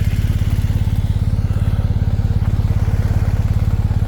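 Motorcycle engine idling steadily, with an even, unbroken low firing pulse.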